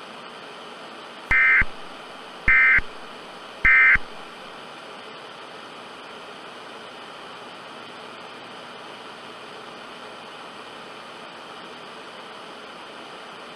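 Three short bursts of Emergency Alert System SAME data tones, about a second apart: the end-of-message signal that closes the alert. A steady hiss of VHS-style static follows.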